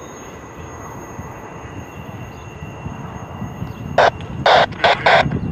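Low, steady rumble of a receding CSX intermodal container train. About four seconds in, four short, loud bursts of hiss-like noise cut in over it, one after another.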